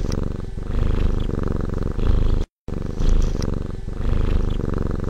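Domestic cat purring loudly and close up, a fast, even rumble. The same roughly three-second stretch of purring plays twice, with a brief cut to silence between.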